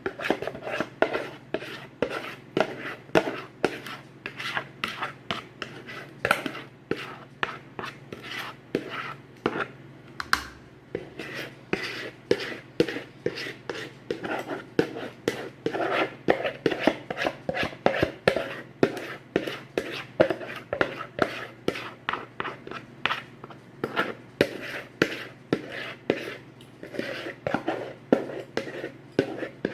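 A spoon working cornbread batter in a bowl, knocking and scraping against the sides in a steady rhythm of about three strokes a second.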